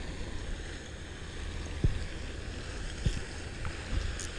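Wind rumbling on the microphone, with a few soft knocks.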